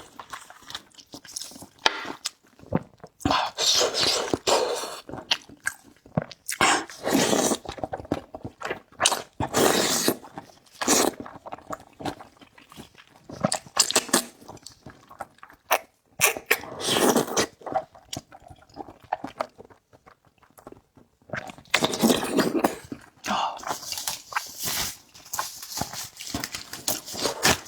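Close-up eating sounds: repeated bursts of slurping and chewing with short pauses between them.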